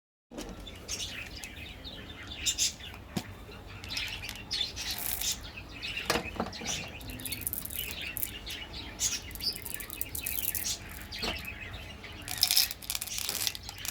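Close-miked mukbang eating sounds: irregular chewing and mouth sounds from tteokbokki and jelly, with several louder ones.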